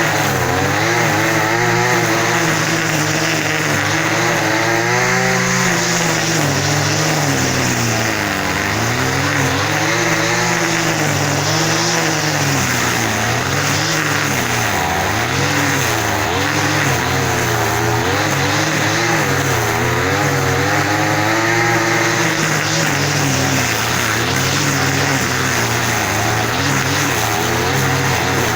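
Engine running loudly, its pitch rising and falling every two to three seconds.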